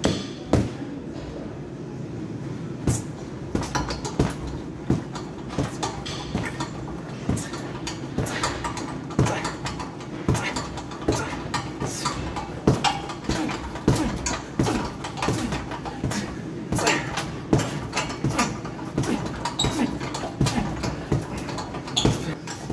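Boxing gloves punching a heavy bag: irregular thuds, often two or three in quick succession, over a steady low background hum.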